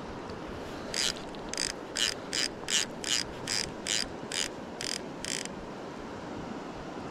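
Fly reel's click-and-pawl ratchet clicking in about eleven short, evenly spaced bursts, a little over two a second, as a hooked salmon is played on the line.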